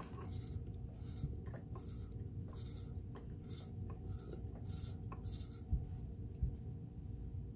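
Rhythmic rubbing strokes, about one every two-thirds of a second, cleaning a part of a Kenmore sewing machine. They stop about five and a half seconds in, followed by two low thumps.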